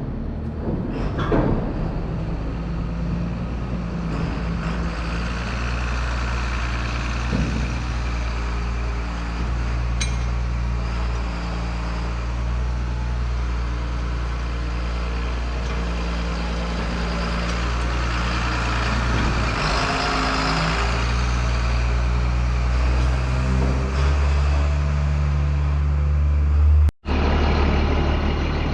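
Tractor engine running steadily. It grows louder with a change in its note about 24 seconds in, then drops out for an instant near the end.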